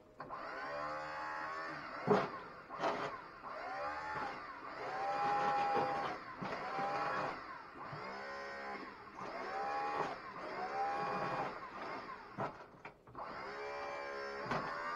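Fisher plow's electric hydraulic pump motor running in short repeated runs, its whine rising and falling in pitch about once a second.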